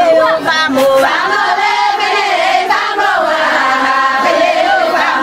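A song: singing voices with a wavering melody over steady, sustained instrumental chords, at an even loudness throughout.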